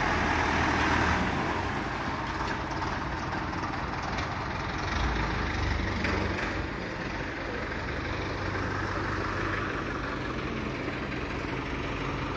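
Farm tractor's engine running steadily at idle, a low even hum, a little louder in the first second or so.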